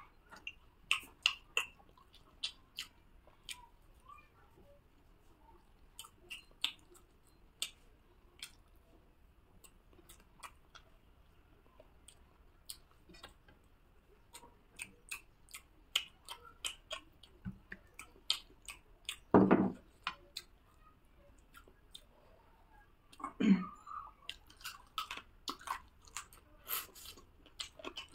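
A person chewing mouthfuls of rice and curry eaten by hand, with many soft, irregular mouth clicks and smacks. Twice, about two-thirds of the way in and again a few seconds later, there is a louder low thump.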